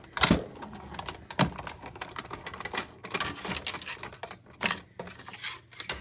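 Hand-crank die cutting machine being cranked, feeding the cutting-plate sandwich with a die and cardstock through its rollers: a run of irregular clicks and knocks, the sharpest ones near the start and about a second and a half in.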